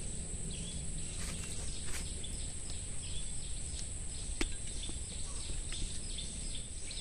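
Outdoor field ambience: a steady high-pitched insect drone, with short bird chirps repeating every fraction of a second. Two sharp clicks come about two and four and a half seconds in.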